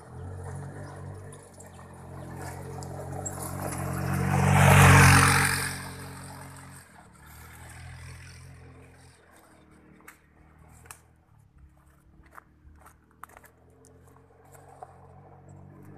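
Polaris Hammerhead off-road buggy's small engine running as it approaches, growing loud as it passes close about five seconds in with a rush of tyre and gravel noise, then fading as it drives away. A few short clicks follow in the quieter second half.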